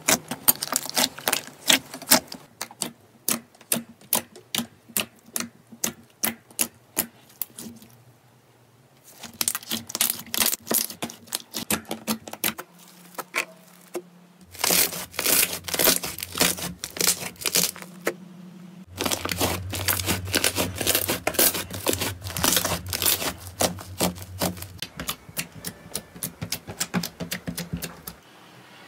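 Slime being poked and squeezed by hand, giving quick runs of sticky clicks and air-bubble pops, several a second, with a low steady hum beneath some of them.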